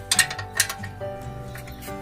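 Background music of held notes that change every half-second or so, with a few sharp clicks near the start.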